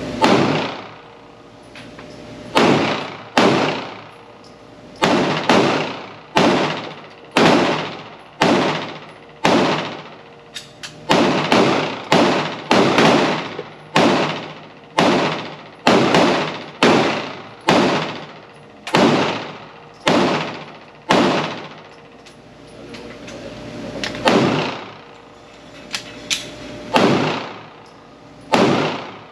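PSA Dagger Compact 9mm pistol firing a steady string of single shots, roughly one a second. Each shot has a ringing tail. There is a pause of a few seconds about two-thirds of the way through, then the shooting resumes.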